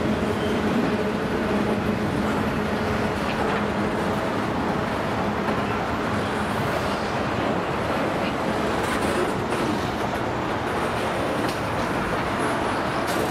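Freight train of covered hopper cars rolling slowly past, a steady noise of steel wheels on rail with a few faint clicks.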